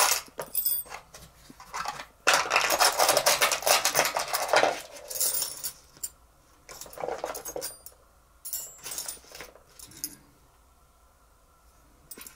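Small metal tools, a set of punches, rattling and clinking as they are rummaged through. A long dense rattle comes about two seconds in, then a few separate clinks, and it goes quiet near the end.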